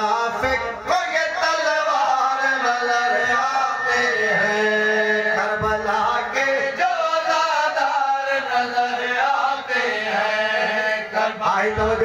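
A man's voice chanting a Shia devotional poem of Karbala mourning into a microphone, drawing out long melodic lines with no pause.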